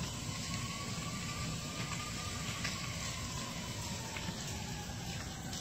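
House fire burning: a steady low rumble with a few sharp crackles. A faint siren slowly wails up and then down.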